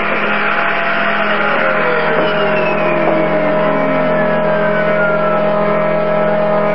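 Homemade CNC router running its 200-watt spindle, a small carbide cutter milling plywood: a steady machine hum and whine with cutting noise, and a tone that slides down in pitch over a few seconds near the middle.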